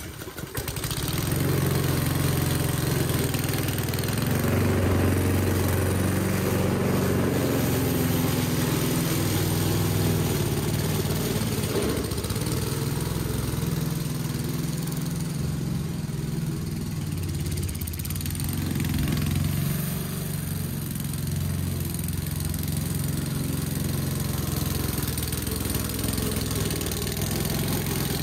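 Petrol engine of an Aldi Ferrex 20-inch self-propelled lawn mower, catching right at the start and then running steadily.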